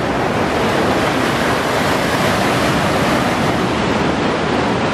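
Sea surf breaking and washing over shoreline rocks: a loud, steady rush of white water.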